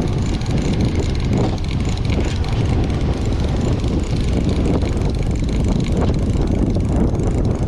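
Fishing boat's engine running steadily: a loud, even low rumble with a rushing noise over it.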